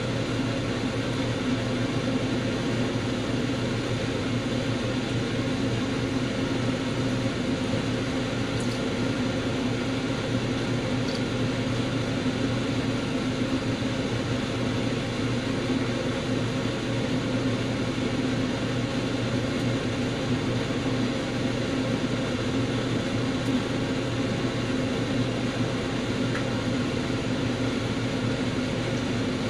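Steady mechanical hum and whir of a running motor, unchanging in pitch and level.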